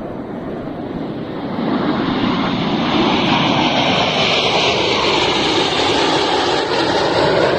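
Jet engine noise from a formation of KAI T-50B Golden Eagle jets flying past overhead. The noise grows louder about a second and a half in, then holds steady.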